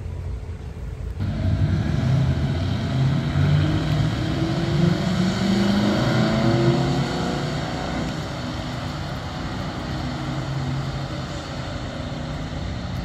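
A convoy of cars, Carabinieri police cars among them, driving past with engines revving. The noise rises sharply about a second in, climbs in pitch around the middle and eases after about seven seconds.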